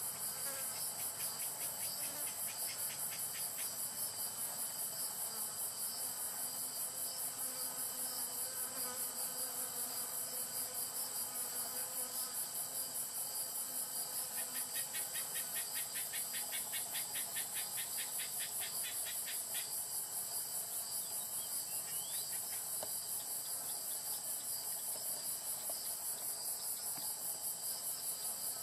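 Wild singing insects, crickets or katydids, in a steady, evenly pulsing high-pitched chorus. A second insect's rapid ticking trill joins briefly near the start and again about halfway through.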